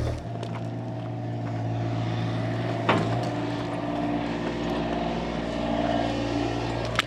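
Engine of a bucket-equipped earthmoving machine running steadily while it works, with a sharp clank about three seconds in and another at the end.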